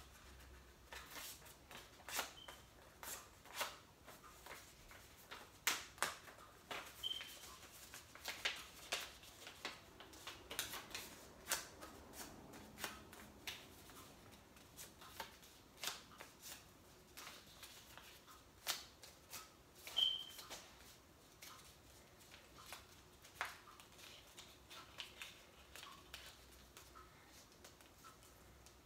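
Small slip of paper handled and folded by hand, crinkling in irregular sharp crackles, with a few short high chirps among them.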